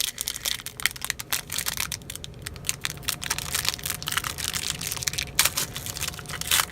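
Trading card pack wrapper being torn open and crinkled by hand, a steady run of crackling with a few sharper snaps, the loudest a little past the middle and near the end.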